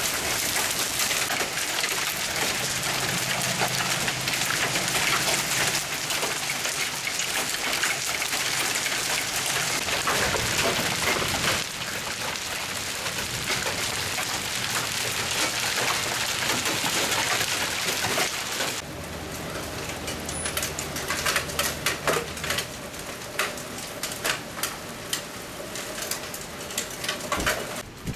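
Golf-ball-sized hail and heavy rain pelting pavement and ground: a dense hiss of rapid hard impacts. About two-thirds of the way through it thins to scattered, separate hits.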